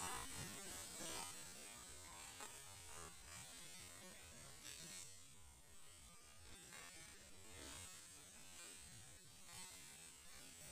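Near silence: a faint steady hum with a thin high hiss of forest background.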